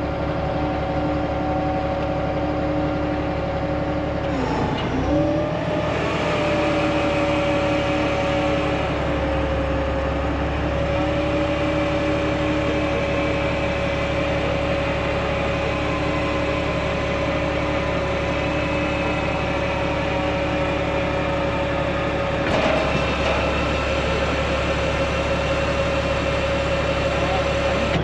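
Service truck's engine and hydraulic crane running under load while lifting a heavy boiler, a steady hum whose pitch sags briefly about four and a half seconds in and then recovers.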